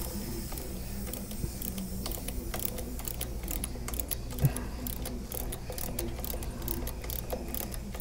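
Ratcheting service-valve wrench clicking in quick runs as it turns an air conditioner's refrigerant service valve, with one louder knock about halfway through, over a low steady hum.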